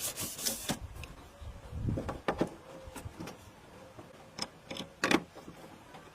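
Scattered clicks and light knocks of hand handling, a cluster in the first second and single ones at intervals after.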